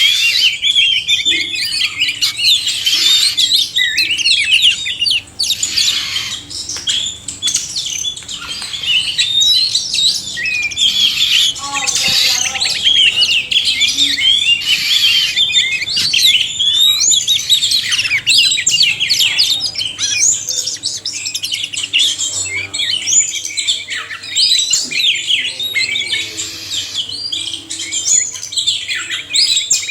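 Oriental magpie-robins (kacer), male and female, singing together: a dense, continuous chorus of overlapping high, quick whistles and chirps, with a brief lower harsh call about twelve seconds in.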